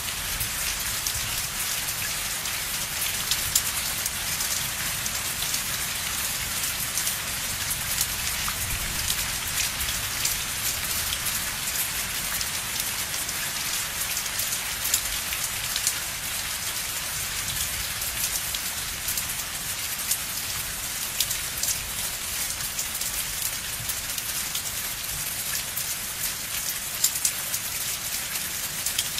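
Steady rain falling: a dense hiss full of fine drop taps, with a low rumble underneath.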